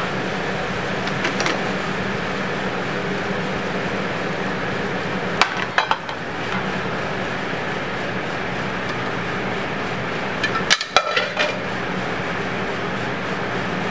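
Stainless steel sauté pans clinking against ceramic plates as jambalaya is tipped out of them, in two short bursts of knocks, about five seconds in and again about eleven seconds in, over a steady kitchen hum.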